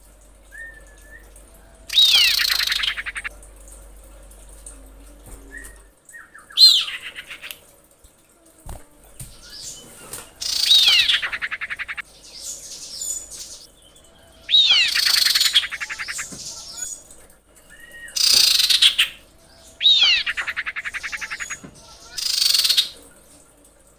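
Female common iora calling: loud, rapid chattering bursts, each with a sharply falling whistled note, repeated about every two to four seconds, with short quieter whistles in between. This is the female's call to a male, used as a lure to bring male ioras into breeding condition.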